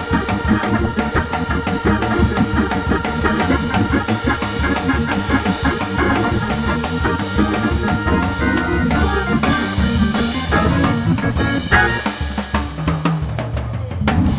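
Live jazz from a drum kit and organ: the drums play busy snare, bass drum and cymbal figures over sustained organ chords from a two-manual Viscount organ. The music thins out near the end.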